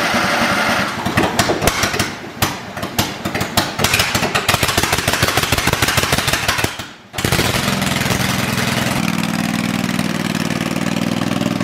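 Kohler Command 22.5 hp V-twin engine on a Simplicity garden tractor firing unevenly in fits, with its kill switch left halfway off. About seven seconds in it dips briefly, then runs steadily with no exhaust fitted, and it picks up a little about two seconds later.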